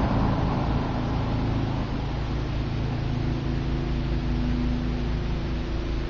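Eskimo two-speed box fan running, its motor hum and blade air noise easing off over the first second or two as it slows, then carrying on steadily with a low electric motor hum.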